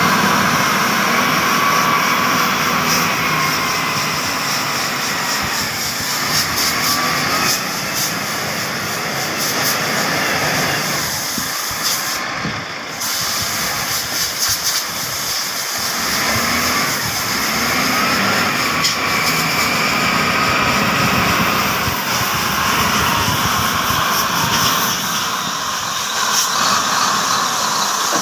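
Wheel loader's diesel engine working, with a whine that rises and falls in pitch as it revs, and a short break about twelve seconds in.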